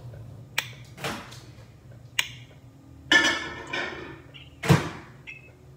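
Kitchen handling noises of food being loaded into a microwave oven: a few sharp clicks, a clatter about three seconds in, a loud knock near the end as the door shuts, then a short beep.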